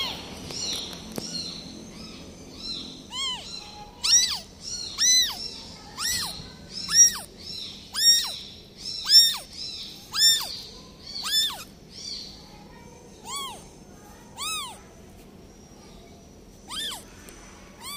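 A newborn kitten meowing over and over: about a dozen high cries, each rising then falling, roughly a second apart, thinning out near the end. These are the distress cries of a newborn kitten left by its mother.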